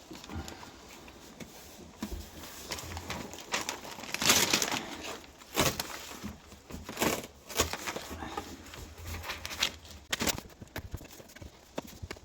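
Irregular rustling and crinkling as sound-deadening foam is handled and pressed into place around a Land Rover seat box, with faint cooing in the background.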